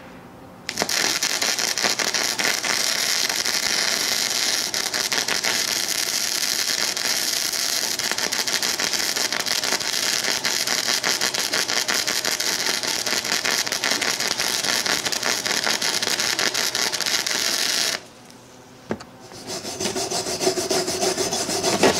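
Harbor Freight 90-amp flux-core wire welder, converted to DC electrode-negative, running a bead at wire-feed setting 6. For about seventeen seconds there is a dense, crackling arc that the welder calls choppy, and it cuts off suddenly. After a short pause a hand wire brush starts scrubbing the fresh weld near the end.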